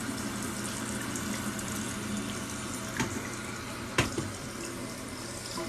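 Toilet tank refilling through a newly installed fill valve: a steady hiss of running water. Two sharp clicks about three and four seconds in.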